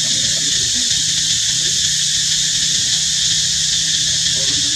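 Steady, high-pitched drone of an outdoor insect chorus, with a low hum underneath.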